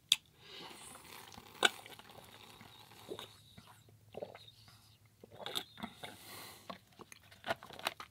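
Close-miked mouth sounds of drinking and eating: scattered sharp smacks and clicks, the loudest two in the first couple of seconds, with softer mouth noises between them.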